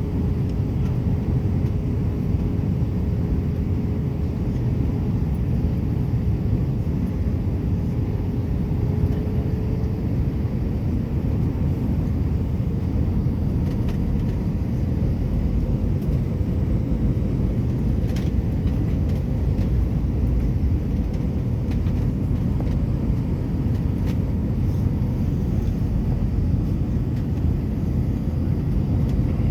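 Steady low rumble of an airliner's jet engines and airflow heard inside the passenger cabin during the final descent. A faint steady tone sits on top of it and fades out about ten seconds in.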